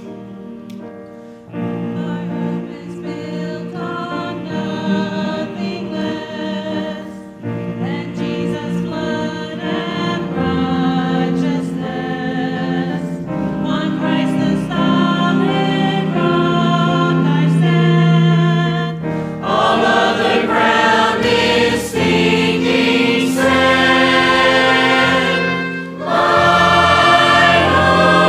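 Mixed church choir of men's and women's voices singing a gospel song together. The singing comes in about a second and a half in and swells in stages, fullest in the last third.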